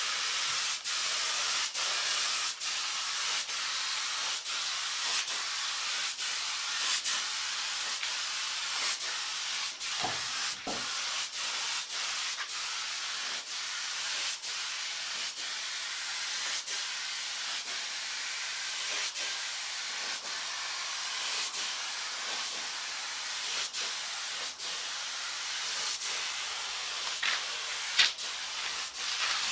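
Paint spray gun spraying paint: a steady hiss of atomised paint and air, broken by many brief gaps as the trigger is let off between passes.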